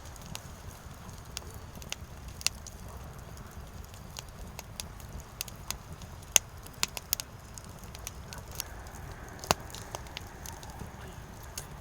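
Firewood burning, crackling with irregular sharp pops over a low steady rumble. The strongest pops come about halfway through and again near the end.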